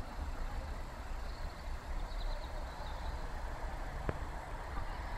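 Low, steady vehicle rumble, with a single sharp click about four seconds in.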